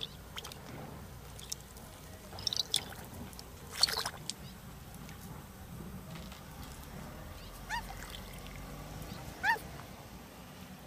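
A lorikeet bathing in a shallow birdbath: two quick clusters of short water splashes in the first half, then two brief chirps later on.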